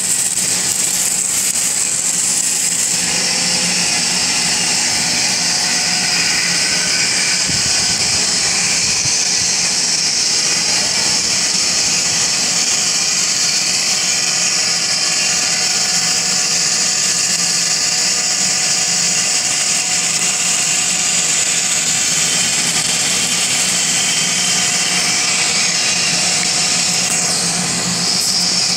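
A motor running steadily, with a constant hiss over a low hum.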